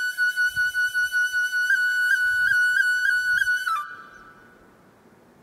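Background music: a single high melody line holding one long note, decorated with quick grace notes. It stops about four seconds in, leaving only a faint steady hiss.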